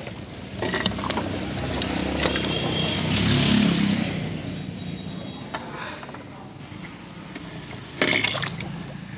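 Die-cast metal toy cars clinking and scraping as they are pushed along a concrete ledge, with a burst of clinks about a second in and a louder one near the end. Behind them a motor vehicle passes, swelling to its loudest about three and a half seconds in and then fading.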